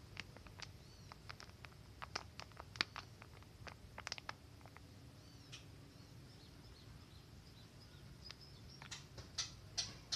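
Thin plastic drinking cup crackling in sharp scattered clicks as it is squeezed and peeled off a soil root ball, busiest over the first five seconds and picking up again near the end. Faint short high chirps sound in the background.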